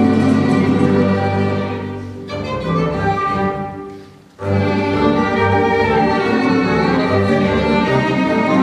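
String quartet playing held bowed chords. The music fades almost to nothing about two to four seconds in, then comes back in suddenly at full strength.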